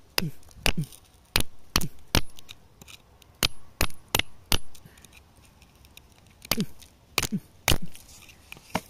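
A hand tool knocking against rock while digging a crystal out of a crevice: about a dozen sharp, separate strikes in irregular clusters, some with a brief low ring.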